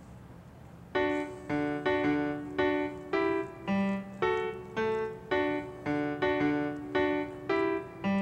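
Background music: a keyboard playing short repeated chords in a steady rhythm, about two a second, starting about a second in.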